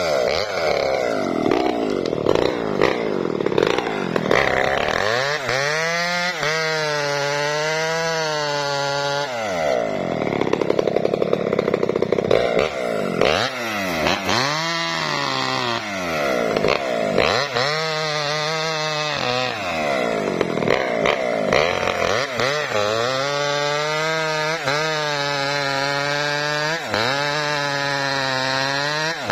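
Small Maestro two-stroke chainsaw cutting through a log: the engine drops in pitch and wavers each time the chain bites into the wood, then rises to high revs between cuts, several times over.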